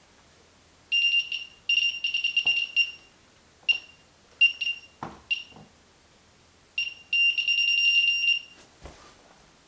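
Handheld RF signal detector beeping at a high pitch, in fast runs of pulses that come and go as it picks up radio signals. There are a few short single beeps around the middle and a long fast run near the end, with a few soft knocks from handling.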